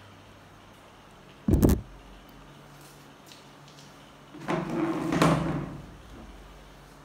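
A sharp clattering knock about a second and a half in, then a longer scraping, rustling noise around the middle as a person moves about and settles into a seat.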